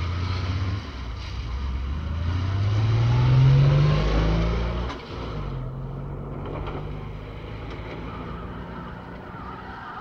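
A motor vehicle engine revving up, rising in pitch to its loudest about three and a half seconds in, then falling away to a steadier, quieter running.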